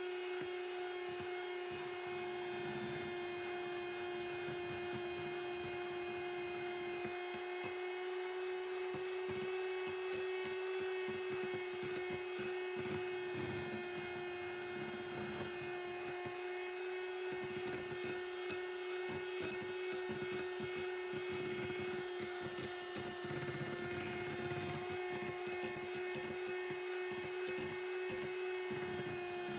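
Electric mixer running at one steady speed, whipping egg whites into meringue, its motor giving a constant hum with irregular scraping of the beaters in the bowl underneath.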